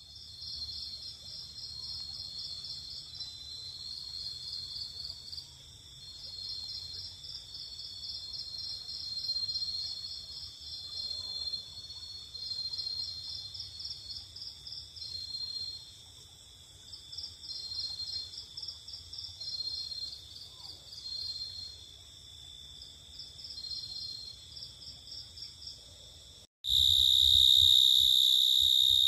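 Night-time insect chorus, mostly crickets: a steady high trill with repeating trains of rapid chirps every few seconds. About 26.5 s in it cuts abruptly to a louder, steady high-pitched whine.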